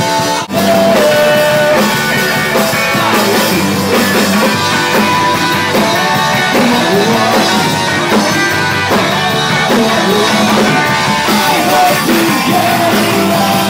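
Live rock band playing loud with electric guitars. The sound briefly drops out about half a second in, then the music carries on.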